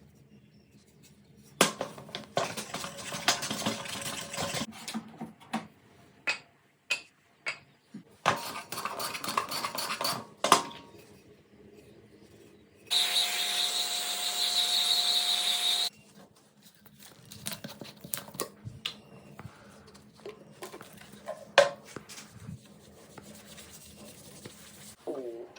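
Workbench and woodworking-vice handling sounds: scattered clicks and knocks, and two stretches of scraping. Near the middle, a small power tool runs steadily with a high whine for about three seconds.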